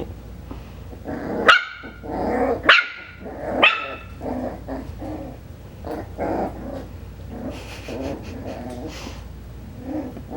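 Five-week-old Coton de Tulear puppy barking: three sharp, high barks about a second apart, then a run of softer, lower barks and grumbles.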